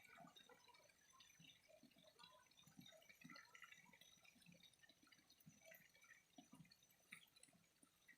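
Faint trickle of flowing water: an irregular patter of small drips and splashes.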